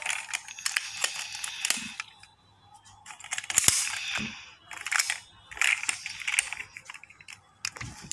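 Clicks and scratchy rustling from handling a die-cast toy Mini Cooper, its rear hatch being lifted open, in several short bursts.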